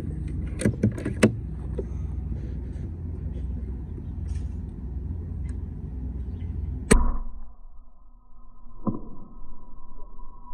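A single sharp crack from an FX Crown Mk2 PCP air rifle firing a 23-grain slug, about seven seconds in, followed about two seconds later by a lighter knock. Before the shot there is a steady low rumble, with a few sharp clicks about a second in.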